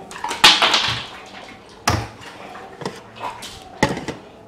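A few sharp clinks and knocks from ice and a drinks cup being handled: the loudest about half a second in, then others near two seconds and near four seconds.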